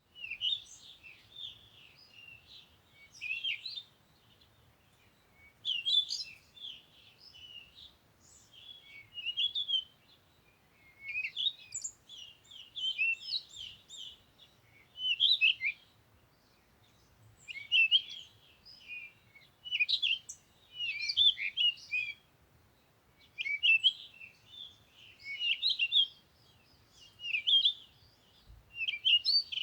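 Songbirds singing: bursts of quick, chirping, warbling phrases, each a second or two long, repeated every few seconds with short pauses between.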